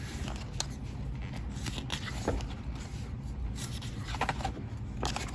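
Faint rustling, scraping and light taps of paper and plastic pieces being handled, over a low steady hum.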